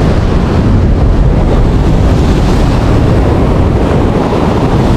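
Ocean surf washing on the beach with wind buffeting the microphone: a loud, steady rush with a deep rumble.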